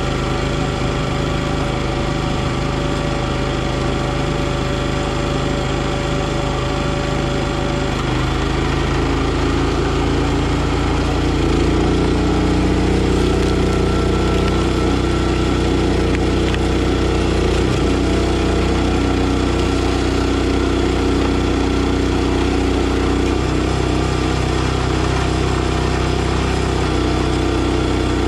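NorthStar 37-ton log splitter's gasoline engine running steadily. About ten seconds in its note deepens and grows louder as it takes the load of driving the hydraulic ram through a log.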